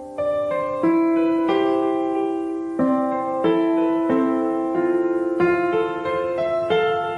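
Background piano music: gentle notes and chords struck one after another at an unhurried pace, each ringing and fading before the next.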